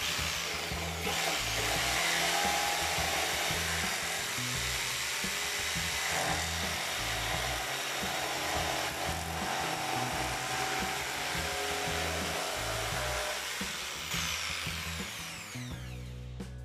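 Makita corded jigsaw cutting straight through a wooden board, running steadily for about fourteen seconds. Near the end the motor winds down with a falling whine as the trigger is let go.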